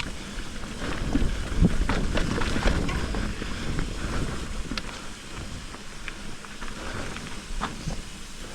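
Mountain bike rolling down a wet, rocky trail: tyres on wet ground, with frequent knocks and rattles as the bike goes over rocks, and wind on the microphone. Louder in the first half.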